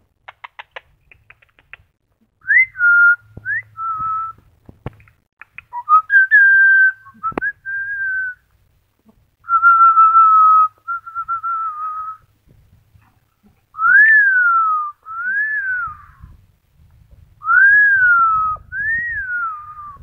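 Amazon parrot whistling a tune: a few soft clicks, then a string of clear whistled notes, short level ones at first, then longer held notes, and near the end several long notes that rise and fall.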